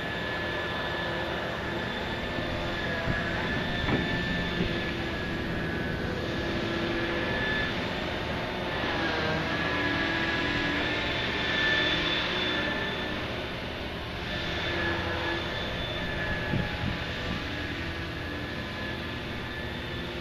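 Heavy machinery of a large backhoe dredger running, with a low diesel rumble and a steady whine that wavers in pitch as the hydraulics work. A couple of sharp knocks come through, one about four seconds in and one near the end.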